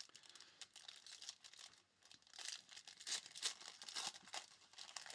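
Trading-card pack wrapper being torn open and crinkled by hand, a faint run of crackling and ripping that is busiest from about two seconds in.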